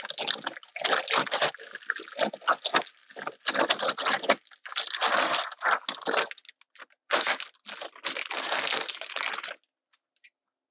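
Plastic zip-top bag crinkling and rustling in irregular bursts as it is shaken and handled to coat strips of flank steak in cornstarch. The rustling stops near the end.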